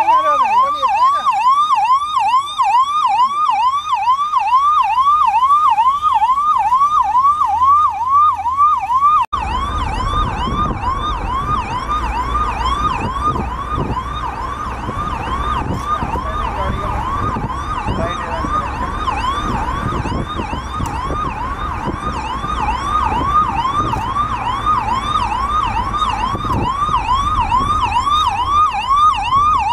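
Ambulance siren in a fast yelp, rapid rising whoops repeating about three times a second without a break. From about nine seconds in, a low road rumble of vehicle traffic sits underneath it.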